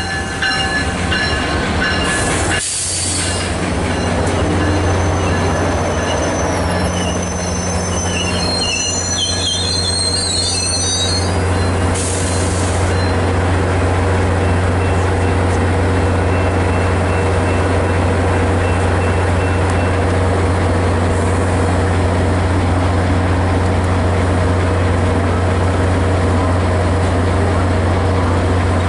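A Caltrain passenger train drawing to a stop, with wheels and brakes squealing high for the first ten seconds or so and two short hisses. Its MP36PH-3C diesel locomotive then idles at the platform with a steady low drone.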